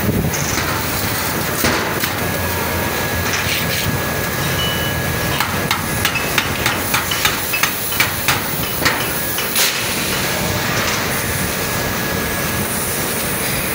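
A hammer tapping a metal core box, about a dozen quick strikes at roughly three a second, starting about five seconds in and stopping near ten seconds. A steady hum and hiss of foundry machinery runs underneath.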